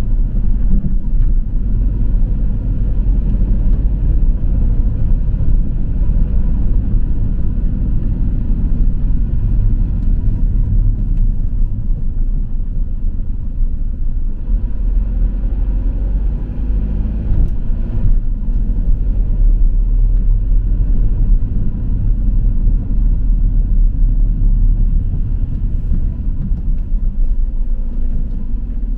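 Steady low rumble of a delivery vehicle driving in city traffic: engine and road noise.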